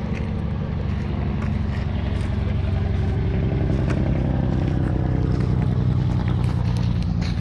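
A motor vehicle's engine running steadily and close by, slowly getting a little louder, with a few light clicks over it.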